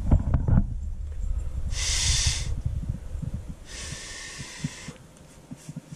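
A person breathing out hard twice, a short breath about two seconds in and a longer one near four seconds, over scattered low knocks and bumps of handling.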